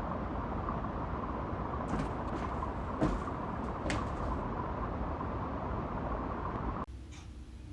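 A steady, noisy background din with a faint constant hum and a few sharp knocks, cutting off abruptly about seven seconds in to a much quieter room with faint ticking.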